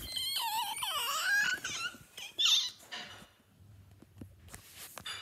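A child's high-pitched squealing voice that wobbles up and down in pitch for about two seconds, followed by one short sharp squeak, then only faint handling clicks.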